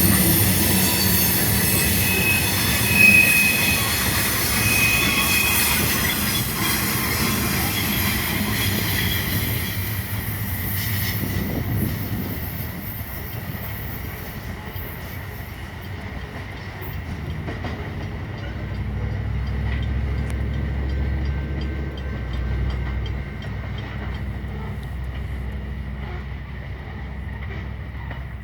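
Loaded coal train's cars rolling by on the rails, with steady wheel squeal for the first ten seconds or so. The squeal then fades as the train draws away, leaving a low rumble that swells in the second half.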